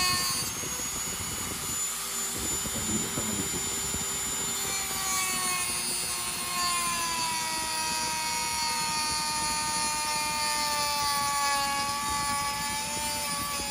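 Dremel 3000 rotary tool with a cut-off disc running at speed, cutting through a ring of beef shank bone around a dog's lower jaw: a steady whine that sags slowly in pitch, over a rasp of the disc on bone.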